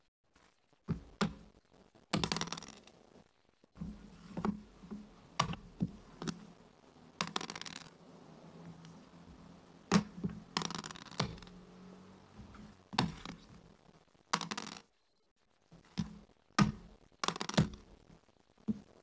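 Backgammon checkers clacking down and sliding across a wooden board as moves are played, in irregular sharp knocks with a few short scrapes, and a pair of dice thrown onto the board.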